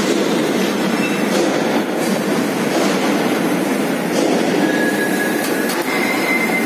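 Overhead crane and machinery in a railway freight-wagon repair shed running with a steady, loud rumble. A thin steel-on-steel squeal starts a little past halfway and steps up in pitch near the end.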